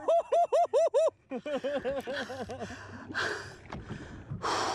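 A man laughing: a quick run of rhythmic "ha-ha" bursts, a short pause, then a second, softer run of laughter.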